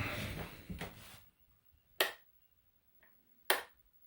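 Two sharp clicks about a second and a half apart, with a faint tick between them, from a radio-control transmitter's switches being flicked to work the locomotive's lights. A soft rustle of handling comes first.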